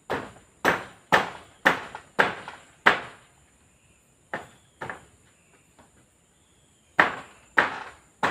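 Sharp blows struck on bamboo poles, about two a second: a run of six, a pause, a pair, then more near the end, each with a short ringing decay.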